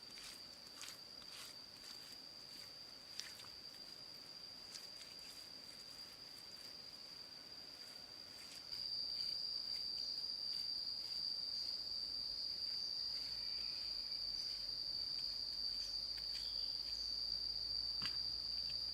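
Steady high-pitched insect drone with scattered light clicks and taps. About halfway through the drone gets louder and a low rumble joins it.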